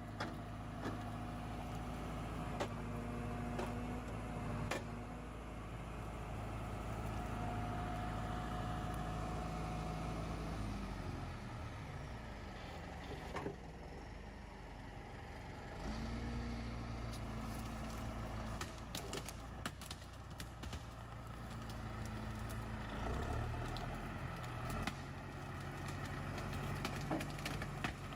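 Valtra N101 tractor's diesel engine running steadily as it drives the hydraulics of a Hypro 755 processor. The engine note drops and rises a few times as the load changes, with occasional knocks of wood against the machine.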